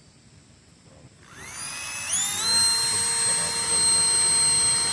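Small cheap portable electric blower (camping air pump) switching on about a second in, its motor spinning up with a whine that rises in steps, then running steadily at full speed.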